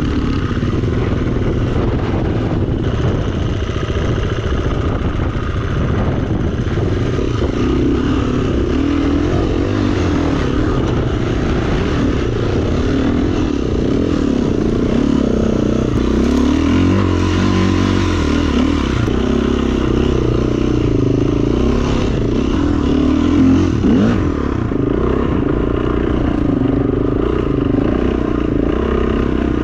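Enduro dirt bike engine running continuously while being ridden off-road, its revs rising and falling the whole time.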